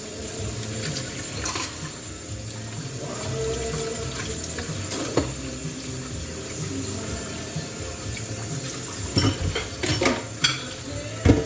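Water running from a tap into a sink while dishes are washed, with several sharp clinks and knocks of dishes, the loudest near the end.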